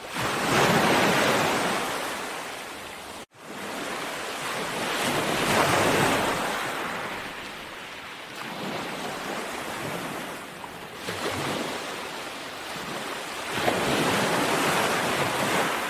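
Sea waves washing onto a shore, each swelling into a surge of surf and then ebbing, about four times. There is a brief break in the sound about three seconds in.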